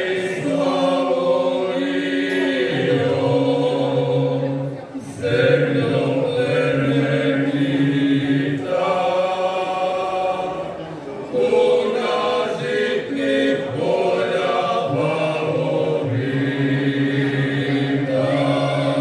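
Male folk vocal group singing a cappella in several-part harmony, holding long sustained notes. The singing breaks off briefly between phrases about five seconds in and again about eleven seconds in.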